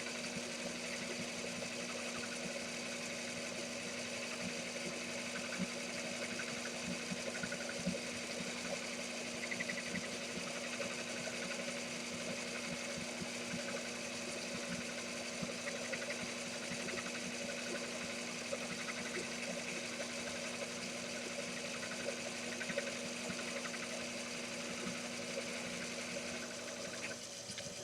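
Small bench lathe running steadily under power, a constant motor hum with light mechanical chatter, likely driving the carriage on its leadscrew power feed. It stops about a second before the end.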